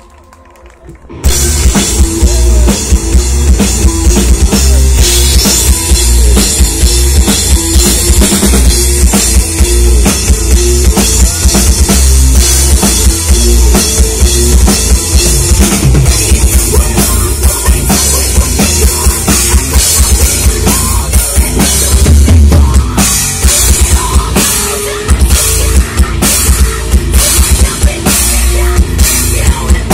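Live metal band playing at full volume: electric guitar, bass guitar and a drum kit with bass drum and cymbals kick in suddenly about a second in and keep going.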